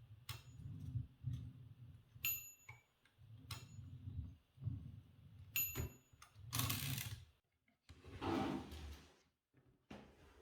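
A 1940 Olivetti MP1 portable typewriter's margin bell dings twice, about two and a half and five and a half seconds in, each ding short and ringing. Around the dings are clicks and rattling from the typewriter's carriage mechanism, with a longer rushing rattle near the end.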